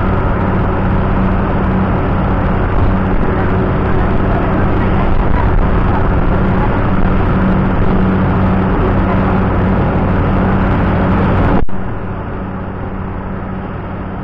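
Loud, steady machinery drone with a low hum, like the inside of an engine room. Near the end it drops abruptly in level and sounds duller, then carries on steadily.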